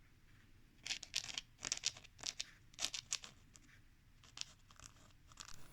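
Scratchy strokes rubbing across paper, about a dozen short rasps at an uneven pace, starting about a second in.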